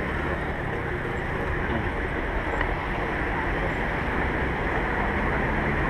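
Steady rushing wind noise on a bike-mounted action camera's microphone while riding, mixed with traffic on the road alongside.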